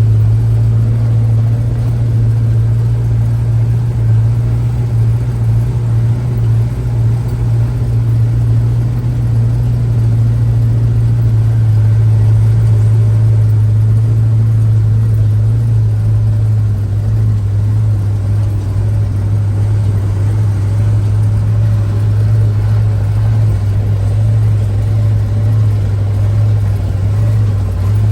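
Logging truck's engine running steadily, a loud low hum that holds the same pitch throughout.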